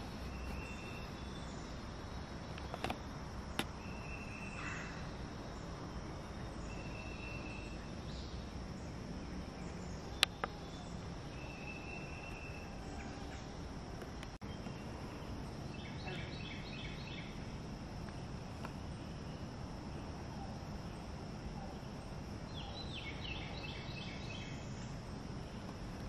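Woodland ambience: a steady high-pitched insect drone, with short single bird notes every few seconds and two brief chattering bird calls, one about two-thirds of the way in and one near the end. A few sharp clicks, the loudest about ten seconds in.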